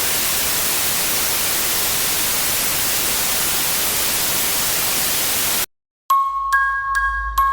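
Steady loud hiss of television static, cutting off abruptly about five and a half seconds in. After a brief silence, chiming music with bell-like notes struck about twice a second begins near the end.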